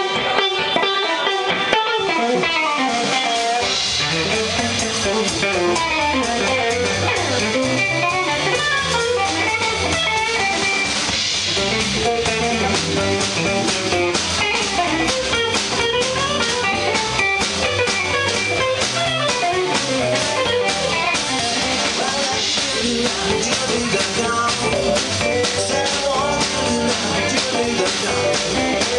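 Live jump-blues band playing, led by a Stratocaster-style electric guitar. The guitar starts almost alone, and drums and bass join about three and a half seconds in.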